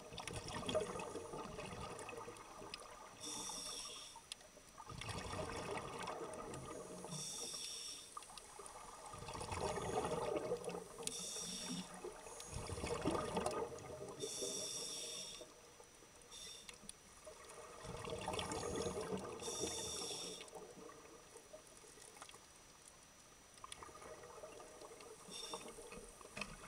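Scuba regulator breathing underwater: a short hiss at each inhale, then a gurgle of exhaled bubbles lasting a couple of seconds, repeating in a slow cycle every four seconds or so.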